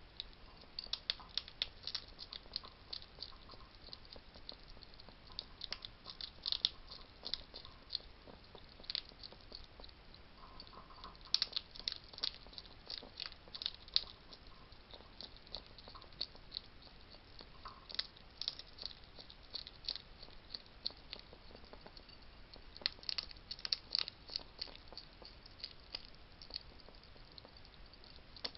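Wild hedgehogs eating, a run of sharp crunches and clicks as they chew hard food, coming in bursts with short pauses between.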